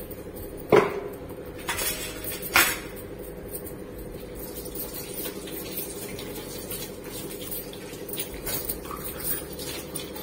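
Metal slotted ladle knocking against a metal cooking pot: two sharp clinks in the first few seconds, then a few lighter taps, over a steady low hum.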